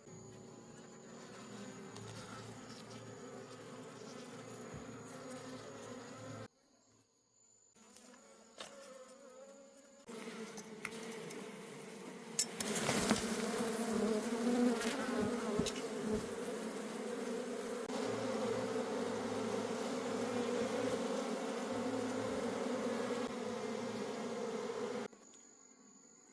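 Mass of honey bees buzzing in a steady, dense hum. It cuts out briefly after about six seconds, comes back quieter, then grows louder with a few sharp knocks around the middle, and stops suddenly near the end.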